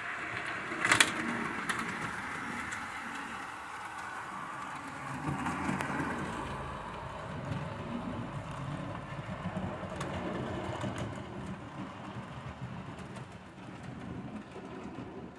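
OO gauge model train running past: wheels rumbling over the track with a few faint ticks, the rumble swelling in the middle as the coaches pass close by, and one sharp click about a second in.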